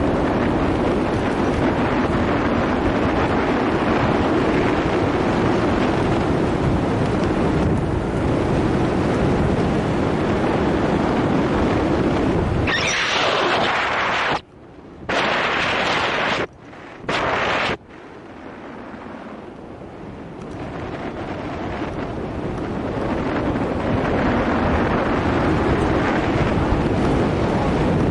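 Wind rushing over the microphone of a camera on a bicycle coasting downhill, a loud steady rush. About halfway through it cuts out abruptly several times, then builds back up gradually.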